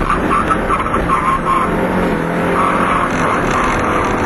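1965 Ford Cortina GT500's four-cylinder engine running hard under load, heard from inside the cabin with loud road and gravel noise. A high-pitched squealing tone comes and goes in the first second and a half and again a little after halfway.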